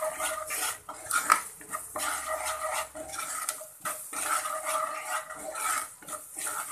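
Wooden spatula stirring and scraping spices in oil around a non-stick kadai, with a squeaky scrape on each stroke, about one a second.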